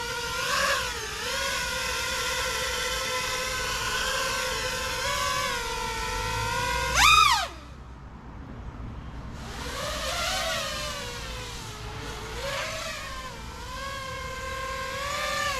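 A 5-inch FPV freestyle quadcopter's brushless motors and props running on a 6-cell battery, screaming with a pitch that rises and falls with the throttle. About seven seconds in there is a sharp, loud punch-out, then the throttle is cut and it goes much quieter for about two seconds before the whine comes back and keeps wavering.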